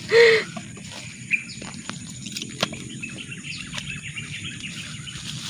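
Birds chirping lightly in the background, with a short loud cry at the very start and a couple of faint clicks as a large eel is handled into a plastic sack.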